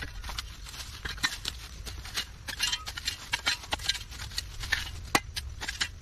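Dry fallen leaves and woody debris crunching and rustling in quick irregular crackles as they are raked and stepped through with a long-handled hand tool, with one sharper knock about five seconds in.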